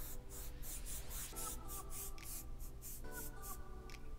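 Airbrush hissing in short, rapid bursts of about three a second as the trigger is worked on and off, stopping shortly before the end. Steady layered musical tones sit underneath.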